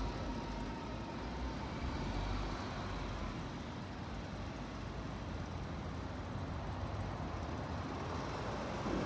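A road or rail vehicle passing in street traffic: a low rumble that fades over the first few seconds, then a steady traffic hum.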